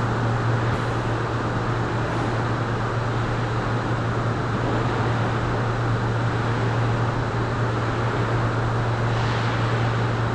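Steady hum and hiss of car-body conveyor machinery and hall ventilation, with a constant low drone underneath.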